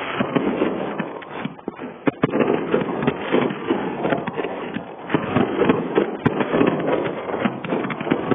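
Fireworks bursting and crackling in a dense, continuous stream of pops, with a brief lull about two seconds in.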